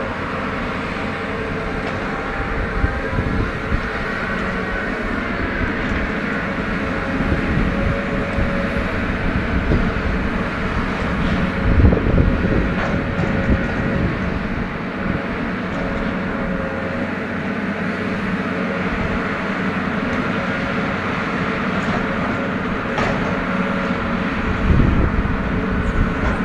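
Atlas 1804MI material handler working timber: its engine and hydraulics run steadily with a whine held on a couple of pitches, broken by a few sharp knocks about twelve seconds in and near the end.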